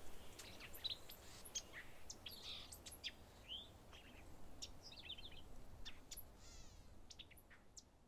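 Woodland birds chirping and calling, faint: many short, high chirps and calls with a brief trill, all fading out near the end.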